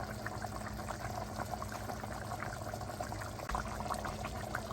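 A pot of snapping turtle meat in tomato sauce simmering, with a steady stream of small bubbling pops.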